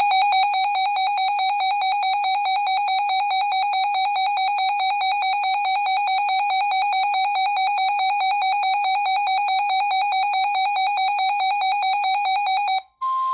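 Weather radio's built-in alert alarm sounding for a Winter Storm Warning: a loud, rapidly warbling electronic beep that starts abruptly and cuts off just before the end, where the broadcast's steady attention tone comes through.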